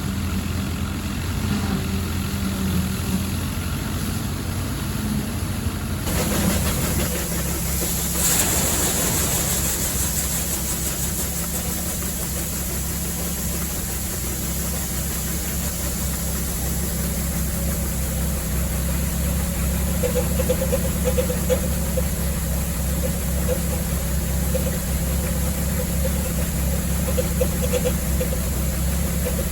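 Allis-Chalmers WD45 tractor engine and the All Crop 72 pull-type combine behind it running steadily while harvesting wheat. The sound shifts abruptly about six seconds in.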